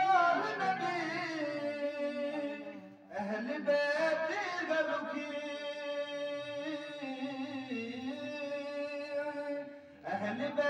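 A man's solo voice chanting a devotional recitation through a microphone and loudspeaker, in long melodic phrases with drawn-out held notes and a brief breath break about three seconds in.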